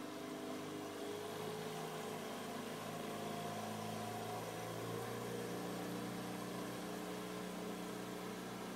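Pontoon boat's outboard motor running steadily as the boat motors away from the dock, a steady drone whose pitch shifts slightly about halfway through.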